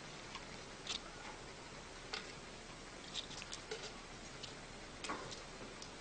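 Two cats wrestling on a tiled floor: scattered light clicks and scuffles of their paws over a steady hiss, with a quicker run of clicks around the middle.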